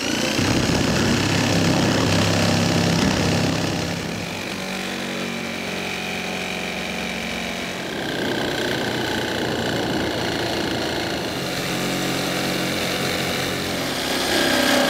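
Electric jigsaw cutting through the sheet-metal roof of a 1999 GMC Sierra, running steadily throughout, a little louder in the first few seconds.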